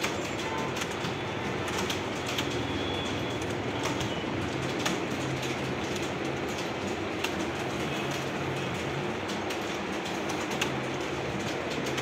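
Computer keyboards clattering as several people type at once: irregular key clicks over a steady low hum.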